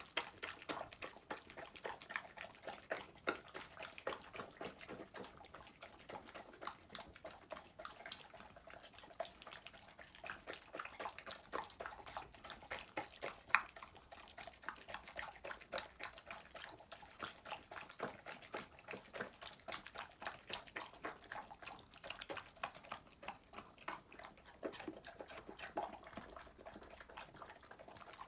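A pet eating from a bowl: a continuous, irregular run of quick chewing and smacking clicks, several a second, with one sharper click about halfway through.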